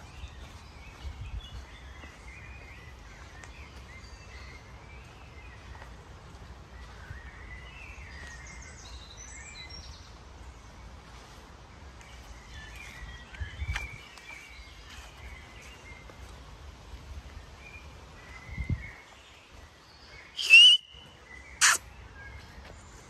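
Songbirds chirping and singing in woodland over a low outdoor rumble. Near the end come two short, loud, high whistles.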